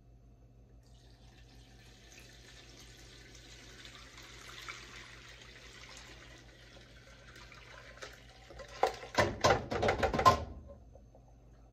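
Homemade stock poured from a pan through a plastic colander into a pot: a faint, steady trickle of liquid. Near the end comes a loud clatter of sharp knocks as the pan is tipped right over and the solids slide out into the colander.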